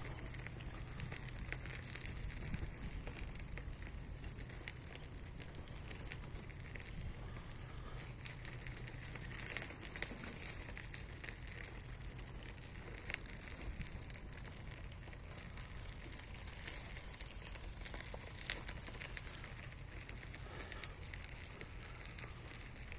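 Steady low crackling with many scattered small pops and clicks.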